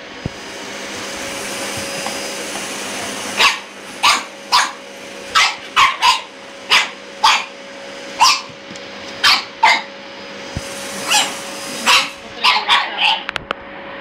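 Pug puppy barking at a running vacuum cleaner, its motor humming steadily underneath. The barking starts a few seconds in as a run of about seventeen short barks, coming faster near the end.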